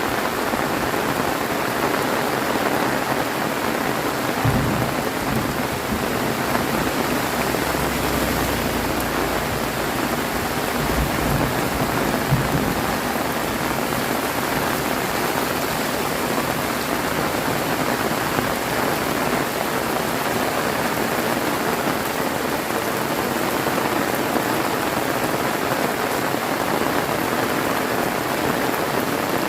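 Heavy rain pouring steadily, a dense even hiss of drops on surfaces. A few brief low rumbles come about four seconds in and again around eleven to twelve seconds.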